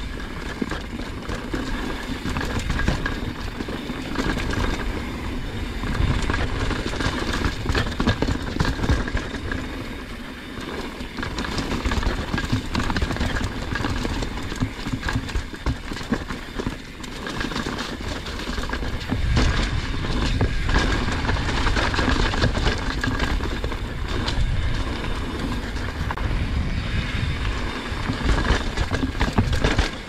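Mountain bike descending a dirt trail: knobby tyres rolling over dirt, rocks and dry leaves, with the bike's chain and frame rattling over bumps in constant clatter. Wind buffets the action-camera microphone with a low rumble.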